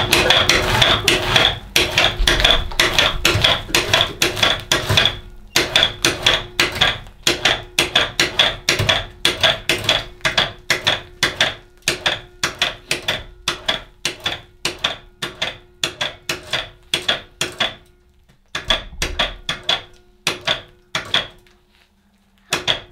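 Motorized fur-skinning rig pulling the hide off a hanging coyote carcass: a steady hum with rapid, even clicking, which stops briefly twice near the end.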